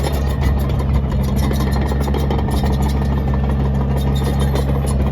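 New Holland D95B crawler dozer's diesel engine running at a steady speed, with a constant low drone and a clattery rattle on top.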